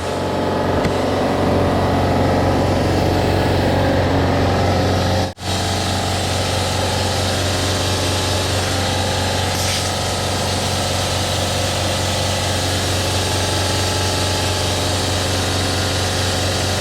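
Air compressor running steadily, filling the air tank for the tire bead blaster, with a low hum; the sound drops out for an instant about five seconds in.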